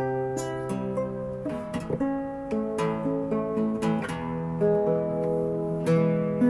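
Background music: an acoustic guitar playing plucked and strummed chords.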